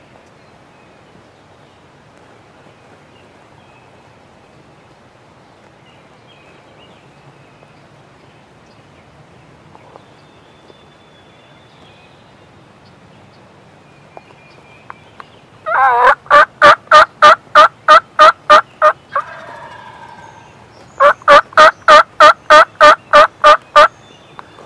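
Wild turkey calling: two loud runs of rapid, evenly spaced notes, about four a second, each lasting about three seconds, with a softer call between them. They begin about two-thirds of the way in, after a long stretch of faint outdoor background.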